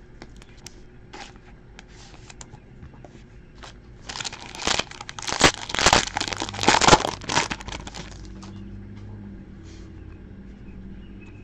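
Foil trading-card pack wrapper crinkling and tearing as it is ripped open and handled, a dense crackle lasting about four seconds in the middle, with faint light ticks before it.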